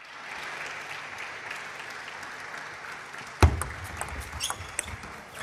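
Spectators applauding, then a single loud thump about three and a half seconds in, followed by a few sharp clicks.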